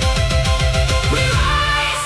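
Celtic-style ambient music, AI-generated, with a steady low beat under sustained tones.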